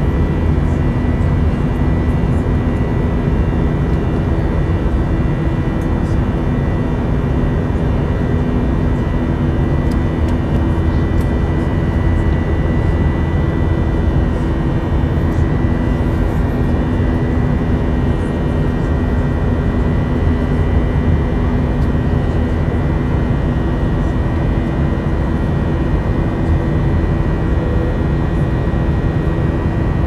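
Jet airliner cabin noise in flight, heard from a window seat: a steady rushing noise with an even engine hum and a few held tones, unchanging throughout.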